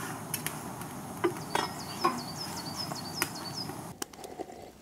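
A few sharp knocks and clunks, with a small bird singing a quick run of short, high, falling chirps in the middle.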